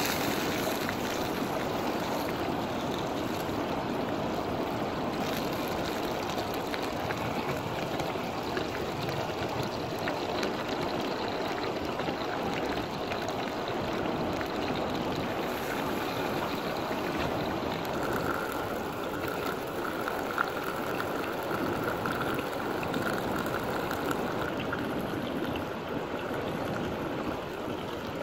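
Steady rush of a fast-flowing river. A faint, steady high tone joins for several seconds past the middle, and there is one short sharp tap.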